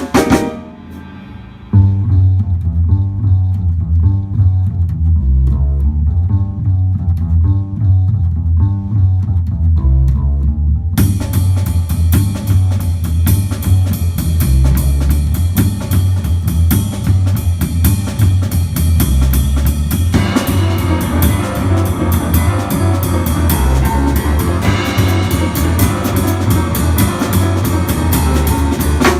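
Instrumental jazz trio music. After a short drop just after the start, a bass line carries on with light accompaniment; about eleven seconds in, the full drum kit comes in with cymbals and keeps a steady beat to the end.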